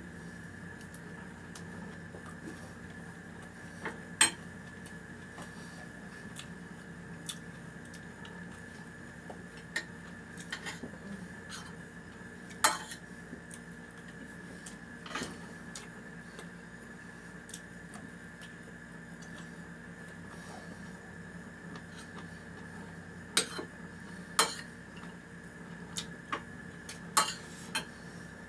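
Spoon and fork clinking and scraping against a ceramic plate while eating: scattered sharp clinks a few seconds apart, with a cluster near the end, over a steady faint hum.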